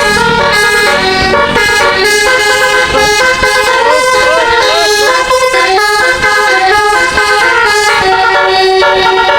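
Bus's telolet musical air horn playing a loud melody of several horn tones at once, the notes changing in quick steps, with a few short swooping notes about halfway through.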